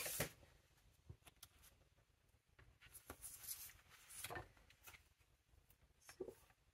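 Faint handling sounds of paper and a plastic pencil board being slid under a planner page: a light knock at the start, then scattered soft rustles and ticks.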